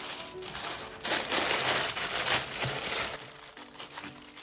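Baking parchment being crumpled by hand and pressed into a round cake pan to line it. The loud crinkling comes in a burst lasting about two seconds in the middle.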